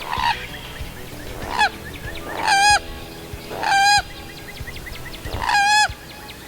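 Common gallinule calling: five separate calls a second or two apart, two short and three longer ones with a wavering pitch.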